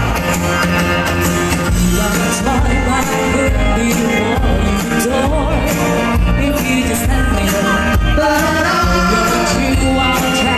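Live band music with a singing voice, playing steadily throughout.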